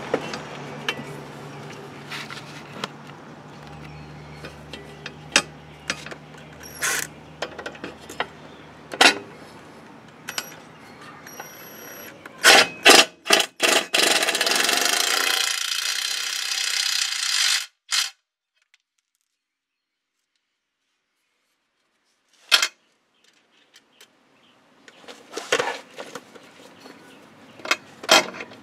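Sharp metallic clicks and clinks of nuts, washers and a socket being handled. About halfway through, a Ryobi cordless driver runs steadily for about four seconds, tightening a nut on the aluminum A-arm guard's clamp, then cuts off. A few more clinks follow near the end.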